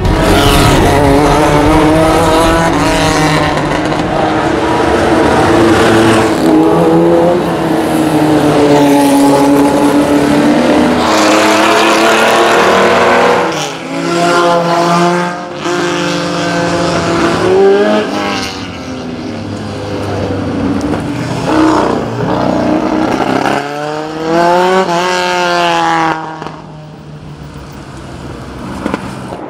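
Classic race car engines at full throttle on a hillclimb, led by the Porsche 911's air-cooled flat-six, revving hard with the pitch climbing and then dropping back at each gear change, over several runs. Quieter near the end.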